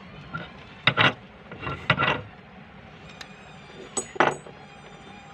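Sharp clinks and clatters of hard objects knocking together: a cluster of several about a second to two seconds in, then two more about four seconds in.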